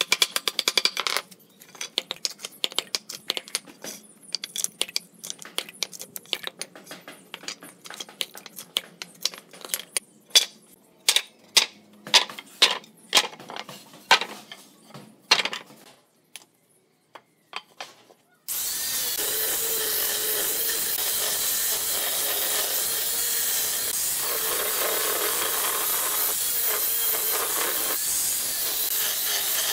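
Claw hammer knocking nails out of a pallet board, followed by a run of sharp knocks and wooden clacks as the stripped boards are handled. After a short pause, about two-thirds in, an angle grinder starts abruptly and runs steadily with its disc on a pallet board, sanding the wood.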